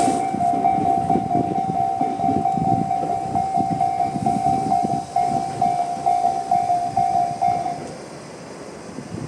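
Electronic level-crossing warning bell of the Tobu 'sound C' type ringing in rapid repeated pulses over a passing train's wheels rumbling and clacking on the rails. The rumble fades as the train moves off, and the bell stops about eight seconds in.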